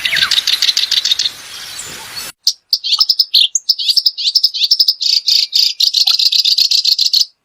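Small songbirds singing rapid trills and chirps. About two seconds in, the sound cuts to a cleaner recording of a bird singing a fast, continuous warbling song, which stops shortly before the end.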